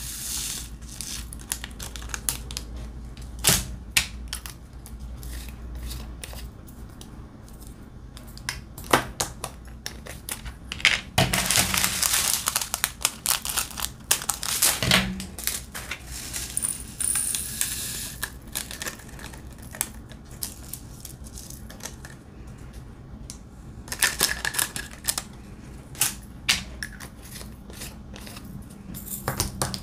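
Diamond-painting drills being handled over a plastic tray: small plastic drill bags crinkling and being snipped open with scissors, and the resin drills rattling into the tray and a storage jar, with many small clicks and taps. The longest stretch of crinkling and rattling comes about eleven seconds in and lasts some four seconds, with a shorter one near twenty-four seconds.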